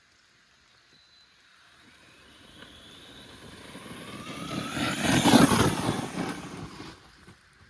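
Absima AT3.4 brushless RC truggy driving past: a high electric motor whine rising in pitch, with tyre noise on the loose surface, growing louder to a peak about five seconds in, then fading away.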